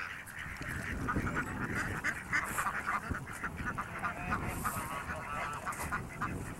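A flock of ducks, white domestic ducks and mallards, quacking repeatedly in short, overlapping calls.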